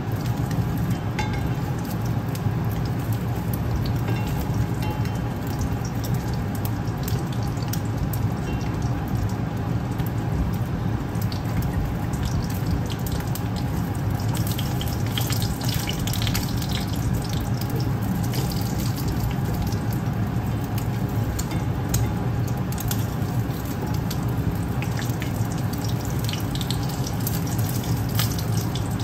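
An egg frying in oil in a cast iron mini wok: steady sizzling with scattered pops and crackles that get busier about halfway through, over a steady low hum.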